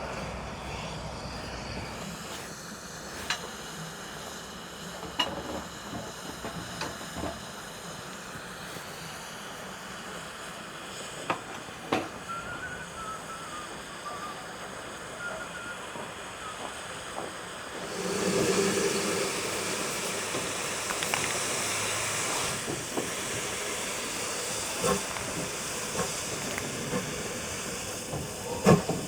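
Steam locomotive standing with steam hissing steadily, with scattered metallic clanks and knocks; about eighteen seconds in the steam blowing off gets louder. Right at the end the first exhaust beats begin as it starts to work.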